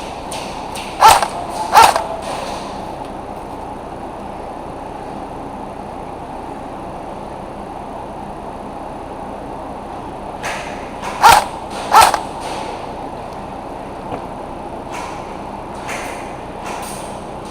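Airsoft gun firing: two sharp shots about a second in, and two more about eleven seconds in, over steady background noise.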